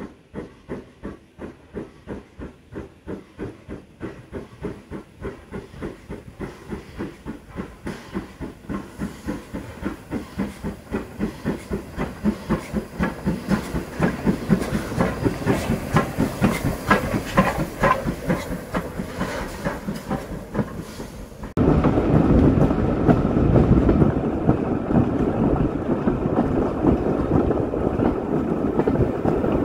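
LMS Ivatt Class 2 2-6-2T steam tank locomotive chuffing as it approaches, its exhaust beats coming about three a second and growing louder as it nears, with a ringing tone briefly around the middle. About two-thirds of the way in, the sound cuts suddenly to the louder, even rumble and clatter of the train running, heard from a carriage.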